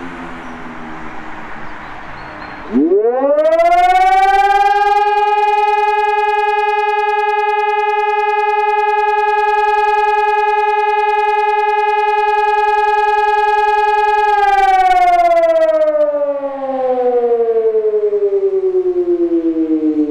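Hörmann ECN 600 electronic high-mast siren sounding the German 'Feueralarm' test signal. A falling wail dies away in the first few seconds; about three seconds in the tone rises quickly, holds one steady pitch for about twelve seconds, then slides down in pitch to the end.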